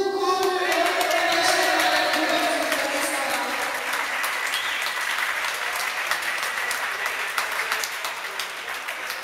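Crowd clapping and cheering, with one long held cheer over it in the first two seconds; the clapping thins out slowly toward the end.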